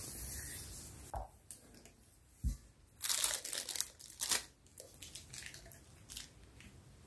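A silicone spatula scrapes soft coffee topping around a stainless steel bowl, with a couple of light knocks. Then a plastic piping bag crinkles in several short bursts as the topping is pushed into it and the bag is handled.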